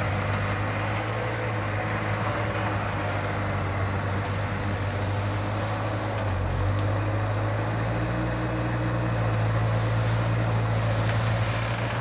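Bobcat skid steer's engine running steadily, its pitch stepping up slightly a little past halfway.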